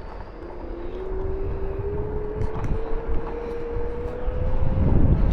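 Jet aircraft engine whine rising slowly in pitch over a low rumble, growing louder near the end.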